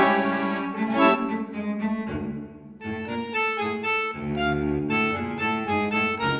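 Background instrumental music with held notes over a steady drone, dropping away briefly about two seconds in.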